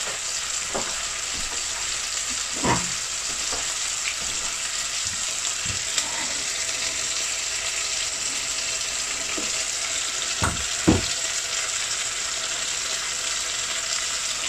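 Boiled chicken pieces with onions and spices sizzling steadily in oil in a cooking pot, with a spoon scraping and knocking against the pot a few times, loudest about eleven seconds in.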